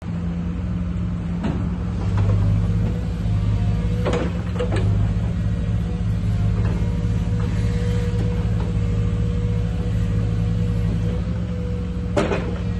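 JCB 51R-1 mini excavator's diesel engine running steadily, working harder from about two seconds in as the boom and bucket are moved hydraulically, with a faint steady whine. A few sharp metallic knocks from the arm and bucket, the loudest near the end.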